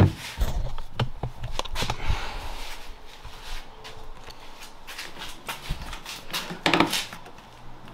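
Handling noise from working loose a BMW E34's left taillight and trunk trim: rustling with scattered clicks and knocks, busiest in the first three seconds, then sparser with one louder knock near the end.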